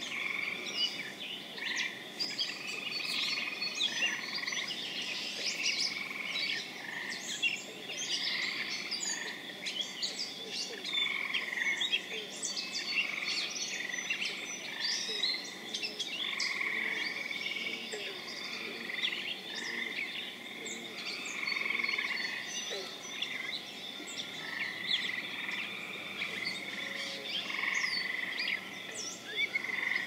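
Spring frog chorus in a marsh, with spring peepers and gray treefrogs among the callers: many short, high peeps and chirps overlapping without a break, with a longer trill about every couple of seconds.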